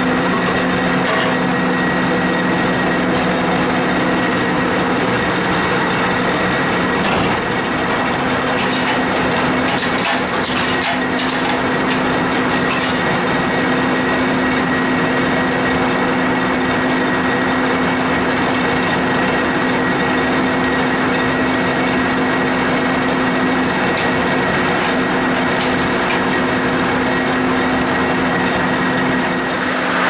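Sawmill machinery running with a loud, steady hum of several tones. A scatter of short metal knocks and clanks comes about a third of the way in, as the log is handled on the carriage.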